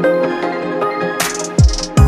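Background electronic music: sustained synth notes, a rising sweep about a second in, then a deep bass hit that drops in pitch near the end as a beat starts.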